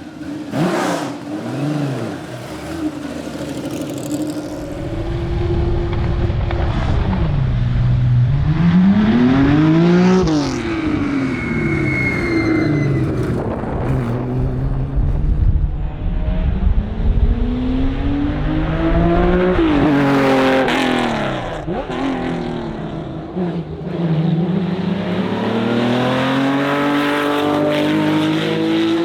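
Porsche 911 RSR's flat-six engine at full race effort, its pitch climbing hard through the gears and dropping away under braking and downshifts, over and over. The biggest climbs peak about a third and about two-thirds of the way through.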